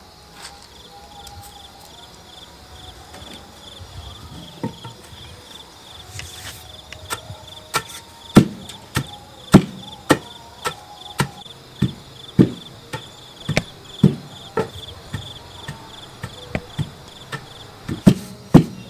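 A cricket chirps steadily in a fast pulsing trill. From about seven seconds in, a run of sharp, regular knocks on a hard surface sets in, roughly two a second, and these are the loudest sounds.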